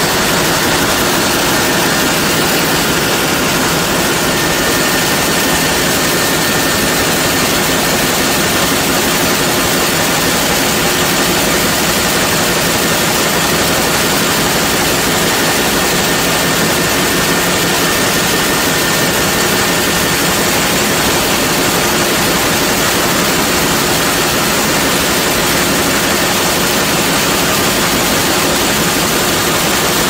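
Sawmill machinery running steadily as powered roller conveyors carry a sawn board: a loud, even mechanical noise with a faint high whine.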